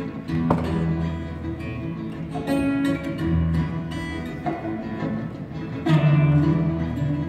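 Solo acoustic guitar played live: chords struck every couple of seconds, with ringing picked notes between them.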